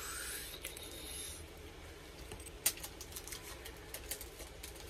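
Hands handling a chicken sandwich and its ranch sauce packaging: a short rustle, then scattered small clicks and crackles, the loudest a single sharp tick about two and a half seconds in.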